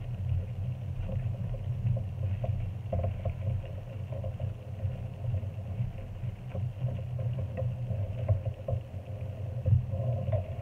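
Wooden spatula stirring chicken and vegetables in a simmering stew in a nonstick pan, making scattered soft scrapes and clicks, over a steady low hum.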